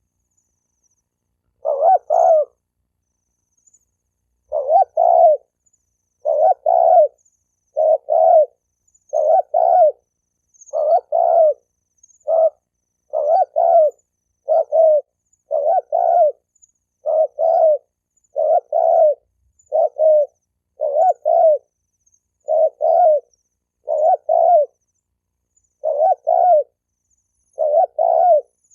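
Spotted dove cooing: short, deep two-part coos repeated evenly about once every second and a quarter, with dead silence between them. It begins about two seconds in. This is the male's repeated advertising coo, the kind played to rouse other doves to call and fight.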